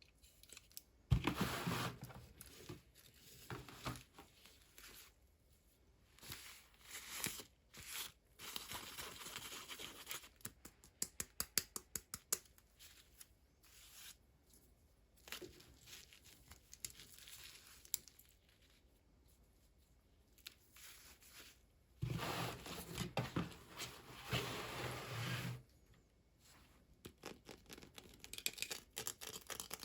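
Toy doll packaging being opened by hand: irregular bursts of tearing and crinkling of cardboard and plastic, with a quick run of sharp clicks about ten seconds in and a longer, louder tearing burst near the end.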